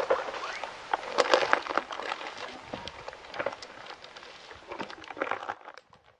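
Camel chewing a spiny prickly pear cactus pad: a rapid, irregular crunching and crackling of the fibrous pad and its spines between the teeth, thinning out and fading away near the end.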